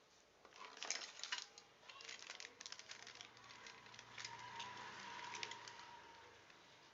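Parts and packaging of a soldering iron kit being handled: a run of light clicks, taps and rattles, with a few sharper clicks about a second in.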